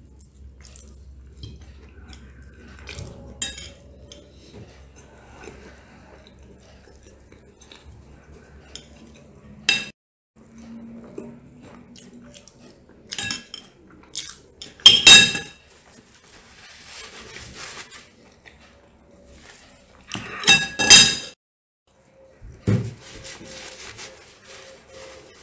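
Metal fork and knife scraping and clinking against a ceramic plate: scattered sharp clinks, the loudest in two clusters near the middle and toward the end, then a dull thump near the end.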